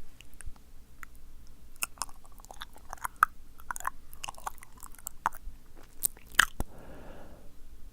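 Close-miked ASMR mouth sounds: irregular wet, sticky clicks and smacks of lips and tongue, ending with a short soft breath.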